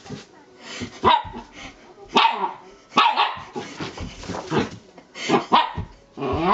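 Elderly Shiba Inu barking in a run of short, sharp barks about once a second. This is its excited fuss before pooping indoors.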